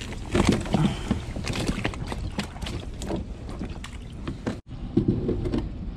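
Knocks and rustling as a caught porgy is pushed into a mesh bag on a plastic kayak, with wind on the microphone.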